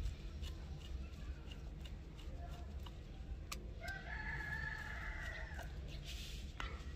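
A rooster crows once, about four seconds in, a single call of under two seconds that rises at the start and then holds. A sharp click from the screwdriver on the revolver's side-plate screw comes just before it, over a steady low hum.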